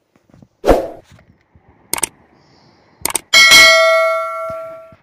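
Subscribe-button sound effect: a thud, two sharp clicks, then a loud bell ding that rings on and fades away over about a second and a half.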